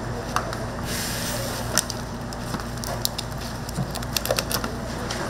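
Kitchen cooking sounds: irregular sharp crackles and snaps over a steady low hum, with a brief hiss about a second in.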